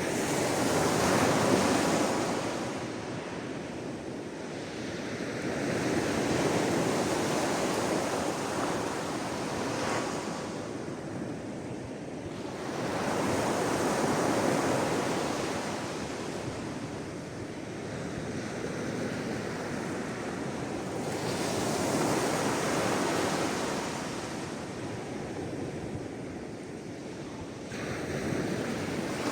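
Sea waves breaking and washing on a shore, rising and falling in slow surges every six to eight seconds.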